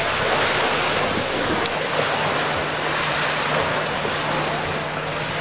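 Wind blowing on the microphone over waves and washing water: a steady rushing noise.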